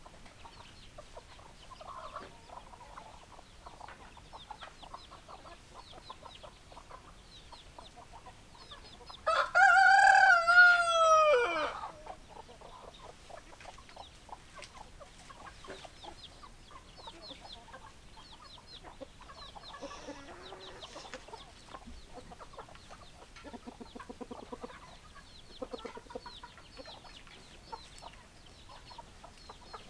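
Rooster crowing once, a loud drawn-out cock-a-doodle-doo about nine seconds in that falls in pitch at its end, over hens clucking softly throughout.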